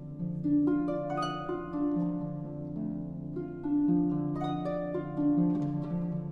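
Concert pedal harp playing solo in a contemporary classical piece: plucked notes and chords in short groups about a second apart, each left ringing on.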